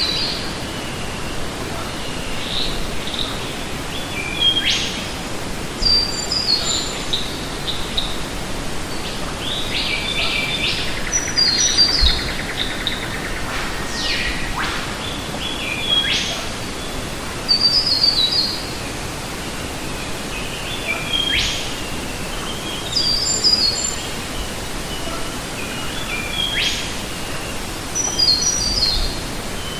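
Steady rush of a small waterfall splashing into a pool, with a bird repeating a short, high, stepped descending phrase about every five or six seconds and other quick chirps between.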